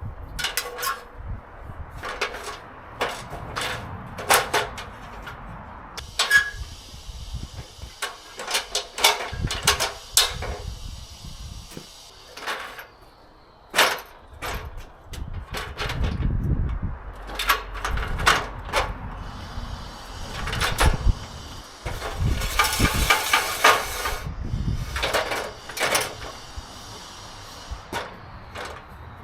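A run of irregular knocks, clicks and clatter, with a denser burst of rattling about three quarters of the way through.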